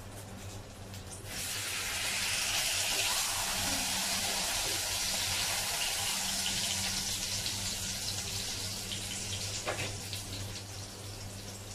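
A piece of lamb hitting hot oil in a frying pan: a sudden loud sizzle starts about a second in, then slowly eases off. A short tap of a utensil comes near the end, over a steady low hum.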